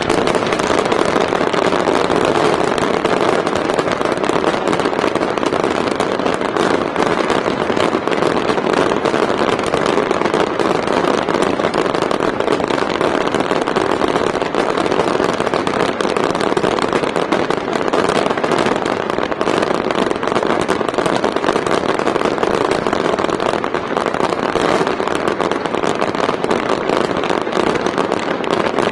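Fireworks display going off in a dense, continuous barrage: many crackling shells blending into one steady roar, with no single bang standing out.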